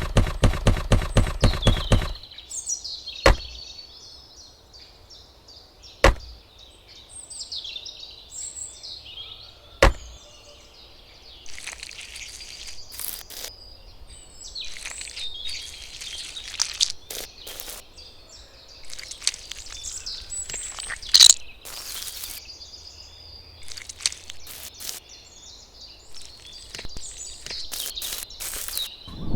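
Outdoor ambience with small birds chirping, broken by scattered sharp taps and knocks. It opens with a rapid run of clicks lasting about two seconds, and single louder knocks follow at intervals.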